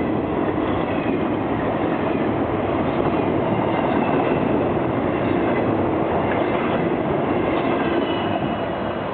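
Freight cars of an intermodal train, container well cars and trailer flatcars, rolling steadily past on the rails with a continuous rumble of wheels, with faint high squealing tones from the wheels over it.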